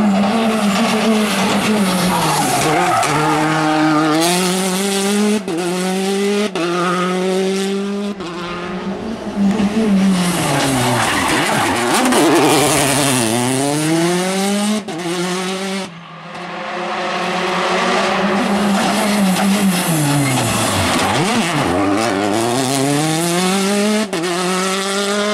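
A series of Citroën DS3 rally cars with turbocharged four-cylinder engines accelerating hard out of tarmac corners. Engine pitch climbs in steps through quick gear changes, dropping on downshifts for the bends, with tyres squealing and skidding.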